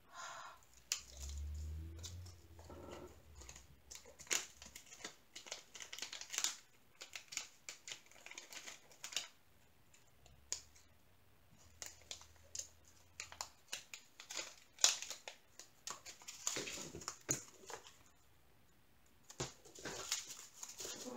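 Small plastic zip-top bags of diamond painting drills crinkling and rustling as they are handled and opened, with scattered light clicks throughout. A faint low hum comes and goes twice.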